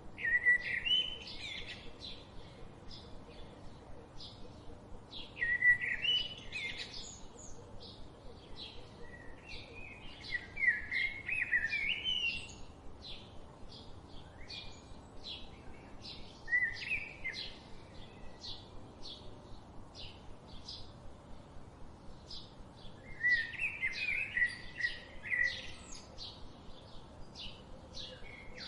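Forest birdsong: one bird keeps up a steady series of short, high chirps, while another sings louder warbling phrases of two or three seconds, about five times, every few seconds.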